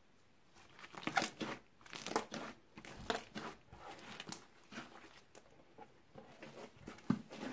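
Hands squishing, kneading and stretching a foamy glitter slime made from clear slime, shaving foam and nail polish: irregular wet squishing noises that start about a second in, with a last burst near the end.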